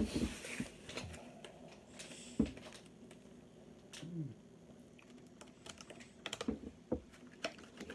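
Faint scattered small clicks and light taps, with a sharper knock about two and a half seconds in and a quicker run of clicks near the end.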